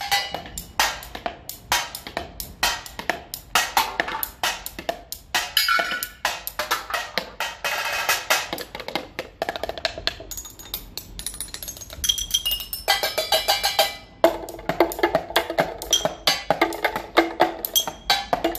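Fast, rhythmic tapping with two thin sticks on a set of small found objects (glass jars, plastic cups, tin lids, a metal flask), played as a techno-style beat. Many strikes ring with short, clear pitched tones, and the beat thins out for a few seconds in the middle.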